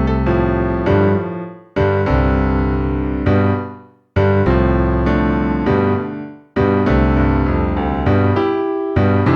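Piano-like keyboard music: phrases of struck notes and chords, three of them dying away to a brief silence before the next begins.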